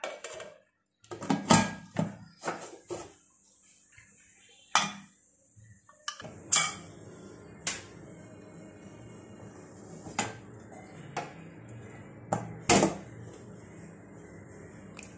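Metal pressure cooker lid clanking and scraping against the pot's rim as it is fitted and locked, and later lifted off: a series of sharp metal knocks, several in quick succession about a second and a half in, then single ones spread through the rest, the loudest near seven and thirteen seconds in. A steady low background noise sets in about six seconds in.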